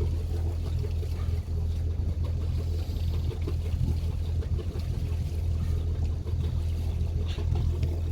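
Boat engine running steadily, a low even hum, with water noise.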